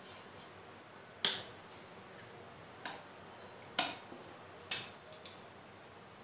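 Four sharp clicks and knocks of kitchen utensils being handled beside the stove, roughly a second apart, the first the loudest, over a faint steady hiss.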